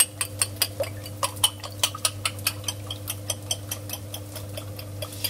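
Sausage slices and onions frying in a non-stick pan, the hot fat popping in sharp irregular ticks several times a second, over a steady hum.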